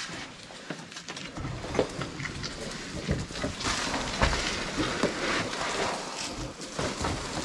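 Someone climbing over rocks and broken concrete: scuffing and rustling, with scattered small knocks of stone.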